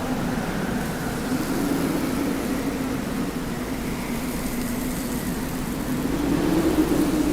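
Steady desert wind: a rushing hiss carrying a low wavering tone and a faint higher whistle, swelling into a stronger gust near the end.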